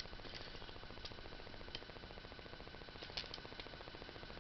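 A few small, light clicks and taps of a spark plug being handled against a gap gauge while its electrode gap is checked, over a steady low hum.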